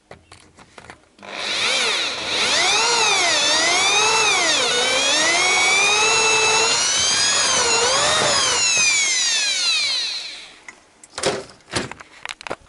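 Electric hand drill drilling out a broken fuel-rail bolt in an engine cylinder head. The motor's whine starts about a second in and rises and falls in pitch as the trigger is eased and squeezed, then stops about ten seconds in. A few short knocks follow near the end.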